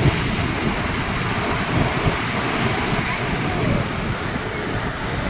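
Sea waves breaking and washing up on the shore, a steady rushing surf, with wind buffeting the microphone.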